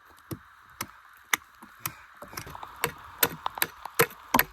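Rain falling steadily, with irregular sharp taps and knocks, a few each second.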